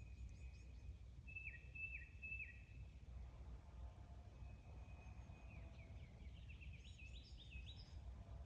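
Faint birdsong: short whistled notes with quick pitch slides, three in a row about a second and a half in and a longer, busier run near the end, over a low steady rumble.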